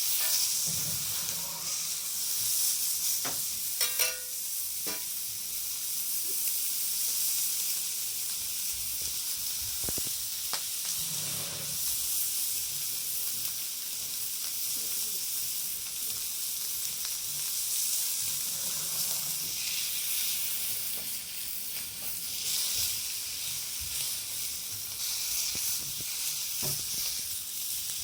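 Sirloin steak sizzling steadily on a thick 9 mm steel griddle plate, with a few sharp clicks about four seconds in.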